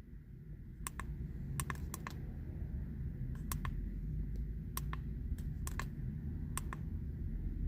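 About a dozen sharp clicks at irregular intervals, like buttons being pressed on a handheld OBD-II code reader, over a low steady rumble.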